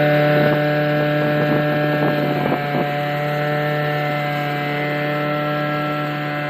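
Engine of a wheat-harvesting machine running at a steady speed, with a few faint clicks about two to three seconds in.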